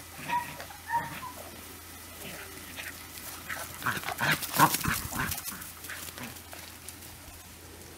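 Seven-week-old puppies yipping as they play tug-of-war with a rope toy: two short high yips near the start, then a louder flurry of yaps and yelps in the middle that fades out.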